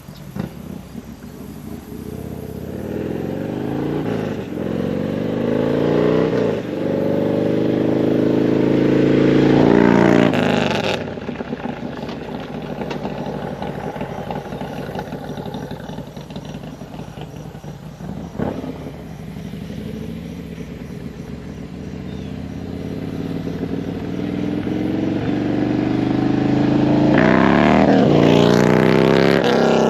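Harley-Davidson V-twin motorcycle with an aftermarket 2-into-1 exhaust running and accelerating, its engine note rising and getting louder twice: from about 3 to 10 seconds in, then again building toward a loud pass near the end.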